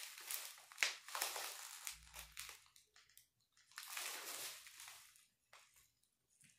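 Plastic bubble wrap crinkling and crackling as it is pulled and squeezed off by hand. It comes in irregular bursts, busiest in the first two seconds and again about four seconds in.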